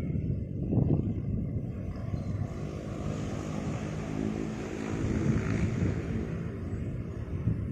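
A large motor vehicle passing by: a steady low engine rumble, with a droning engine note and a rushing hiss that swell to a peak a few seconds in and then ease off.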